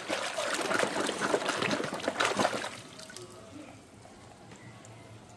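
Water running and splashing as toys are washed, for nearly three seconds, then it stops.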